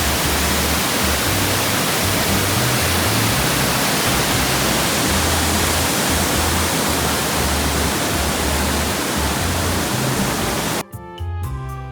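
Waterfall running in heavy flow, a loud steady rush of water, its volume swollen by rain, with background music underneath. The water sound cuts off suddenly near the end, leaving only the music.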